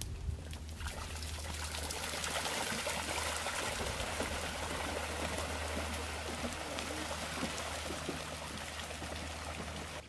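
Water trickling and running steadily through shallow marsh water, an even rushing sound that comes up about a second in and eases a little near the end.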